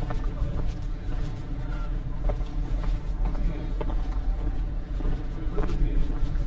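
Outdoor walking ambience: wind buffeting the microphone in a steady low rumble, with scattered footsteps and faint street sounds.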